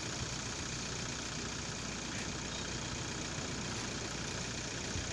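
Steady wind noise on the microphone, a low rumble with a hiss above it.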